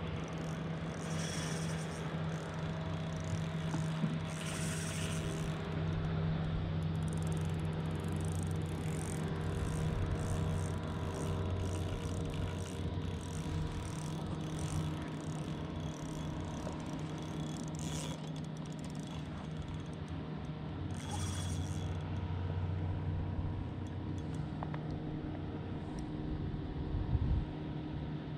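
An engine running steadily with a low, even hum. Faint light swishes repeat about every half second through the middle.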